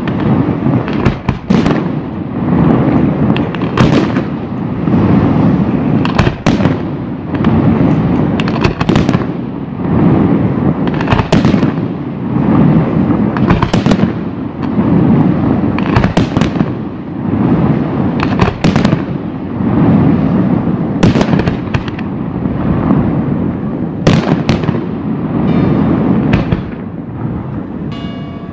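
Aerial firework shells bursting in a dense barrage: many sharp bangs in quick succession over a continuous rumble of reports and their echoes.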